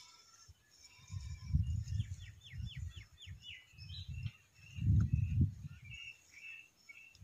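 Small birds chirping, including a quick run of about seven falling notes a couple of seconds in, over louder low rumbling gusts of wind buffeting the microphone.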